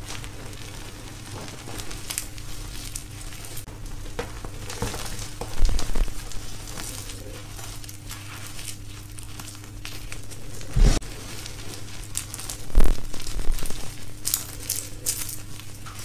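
Hands crushing and crumbling dry gym chalk into powder: a steady soft crackling crunch, with a few louder crunches about six, eleven and thirteen seconds in as handfuls are squeezed.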